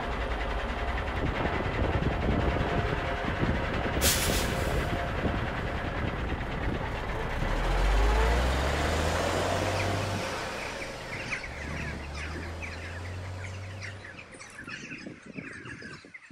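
Road traffic: a motor vehicle passing, with a low engine rumble that swells to its loudest about eight seconds in and then fades away. A brief hiss sounds about four seconds in.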